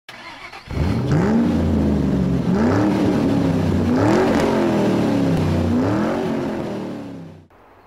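Corvette V8 engine revved four times, each blip rising and falling in pitch, fading out near the end.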